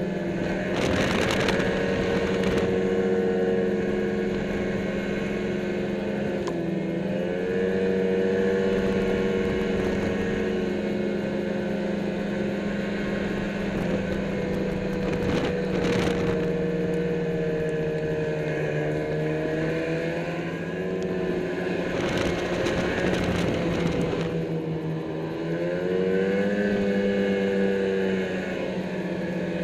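Snowmobile engine running steadily under way, its pitch dropping and picking back up a few times as the throttle eases off and reopens. Short bursts of rushing noise come through about a second in, around sixteen seconds, and again in the early twenties.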